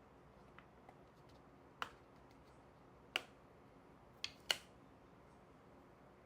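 A few sharp, light clicks and taps of small objects being handled, four of them louder than the rest, the last two close together.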